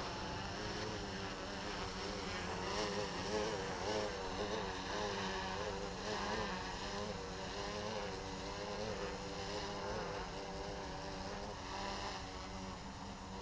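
Flip Sport FPV quadcopter's electric motors and propellers buzzing in a low hover, the pitch wavering up and down as the throttle shifts with quick control inputs.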